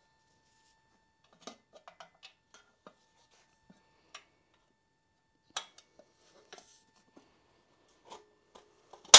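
Light, irregular clicks and taps of a stamped-steel valve cover being fitted onto the cylinder head of a Porsche 912 flat-four engine and fastened in place by hand, with one sharp, louder metallic click near the end.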